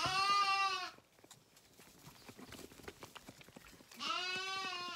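Zwartbles lambs bleating at bottle-feeding time: two long bleats, one right at the start and another about four seconds in, each rising slightly and then falling. Faint rustling in the straw between them.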